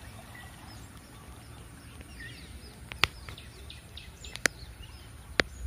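Small birds chirping over a low, steady outdoor background, broken by three sharp clicks in the second half, each about a second apart.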